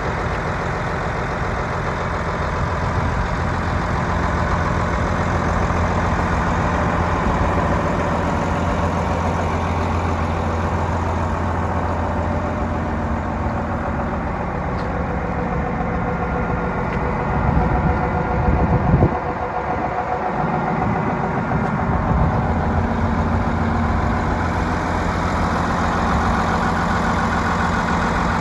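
New Holland D180 bulldozer's diesel engine idling steadily, with a short rise in engine noise about two-thirds of the way through before it settles back to idle.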